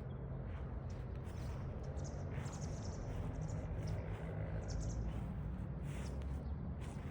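Small birds chirping in short high bursts, scattered throughout, over a steady low rumble.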